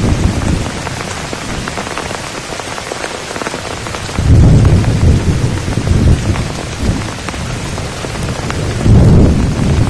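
Heavy rain falling steadily, with low rumbles of thunder that swell about four seconds in and again near the end.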